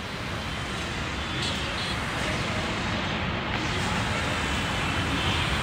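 Road traffic noise heard from above: a steady wash of passing cars and motorbikes that slowly grows louder.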